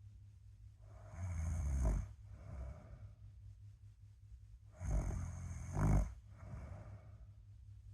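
A sleeping person snoring: two snores about four seconds apart, each about a second long and growing louder toward its end, with a softer breath after each.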